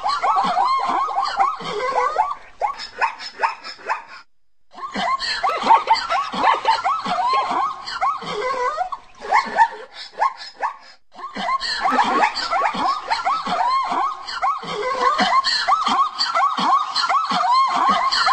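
Zebras calling: dense runs of short, yelping barks in three long bouts, broken by brief pauses about four and eleven seconds in.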